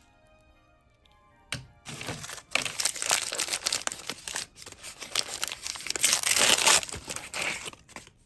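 Crinkly toy wrapping being crumpled and torn open by hand. It starts about a second and a half in, runs loud and continuous, and stops just before the end. Soft music plays underneath.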